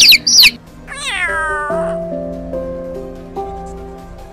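A cat meows once about a second in, a single call that falls in pitch, over soft piano music. Rapid bird chirping cuts off just before it.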